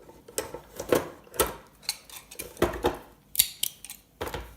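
Plastic parts of a gaming steering wheel being handled and taken apart: irregular clicks and knocks, with a short rattle near the end.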